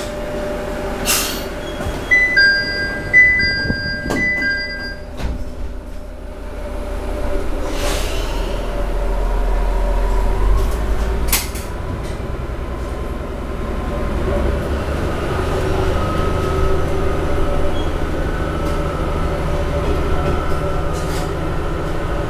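A short electronic chime of a few two-tone beeps, typical of a railcar's door-closing warning, then the diesel railcar's engine rising to a steady low rumble as it pulls away from the station, heard from inside the car, with a few sharp clunks along the way.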